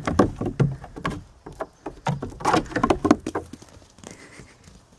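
Goats' hooves clattering and scuffling in an irregular run of sharp knocks as the goats romp and play, busiest in the first three seconds and thinning out toward the end.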